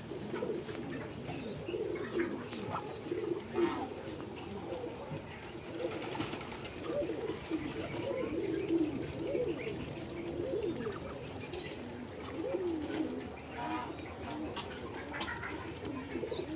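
A flock of Muscovy ducks calling softly, a continuous murmur of short, low, wavering calls overlapping one another, with a few brief higher calls now and then.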